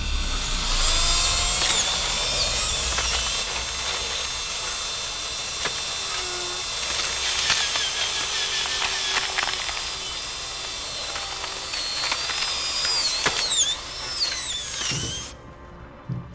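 Power drill whining at a high pitch, the whine wavering and sliding up and down as it bites, with a few sharp clicks. It cuts off suddenly near the end.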